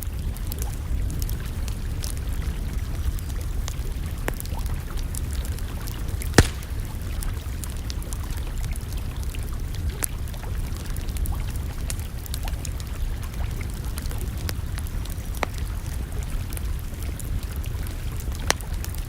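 Wood campfire crackling, with scattered sharp pops over a steady low rumble; one loud pop about six seconds in and another near the end.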